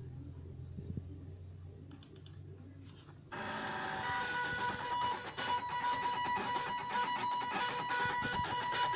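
Stepper motors of a homemade Arduino CNC plotter, driven by an L293D motor driver, start suddenly about three seconds in and run with a steady whining buzz as the machine plots.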